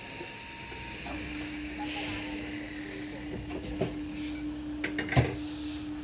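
Construction site sounds: a steady machine hum starting about a second in, with a few sharp knocks, the loudest a little before the end.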